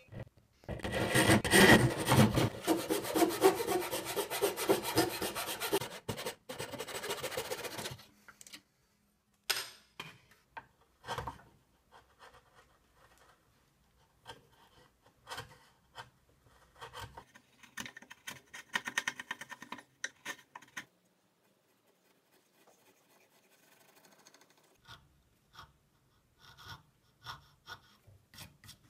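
Japanese-style hand saw cutting birch in quick, rasping strokes for about the first eight seconds. After that, quieter scattered scrapes and light clicks as a chisel pares waste from the joint, with a short run of quick paring strokes about two-thirds of the way through.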